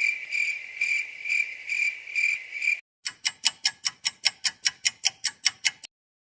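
Two sound effects in turn: first a high, pulsing chirp, about two pulses a second, for nearly three seconds, stopping abruptly; then after a short gap a quick run of sharp ticks, about seven a second, for about three seconds.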